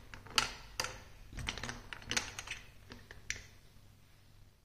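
A plastic marble rolling down a plastic block marble-run slide, clicking and clacking against the track and knocking into another marble at the bottom. The clicks come in an uneven run, loudest early, and die away after about three seconds.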